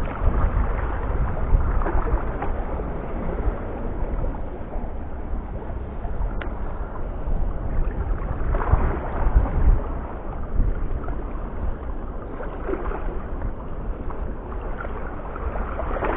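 Wind buffeting the microphone as a low, uneven rumble, with a steady rough hiss on top.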